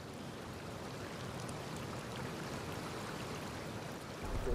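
Fast-flowing mountain river rushing over stones in a steady wash. A low rumble comes in just before the end.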